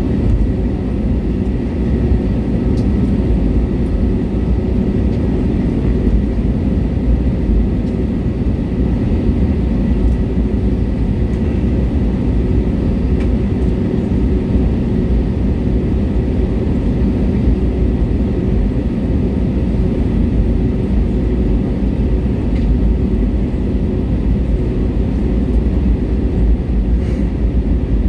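Steady cabin noise inside an Airbus A320neo on the ground, mainly a low rumble from its Pratt & Whitney PW1100G geared turbofans at low power, with a faint steady whine over it.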